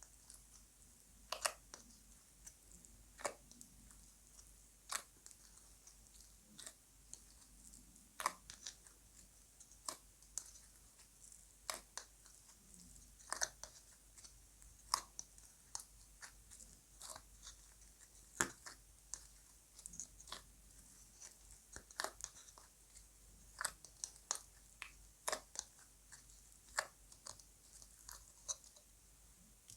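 Slime being kneaded and folded by hand, giving off irregular sharp clicks and pops, a few every couple of seconds.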